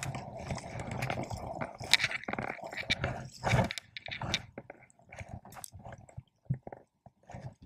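Irregular rustling and scraping with scattered clicks and knocks: handling noise from the angler's movements while casting and working an ultralight spinning rod and reel.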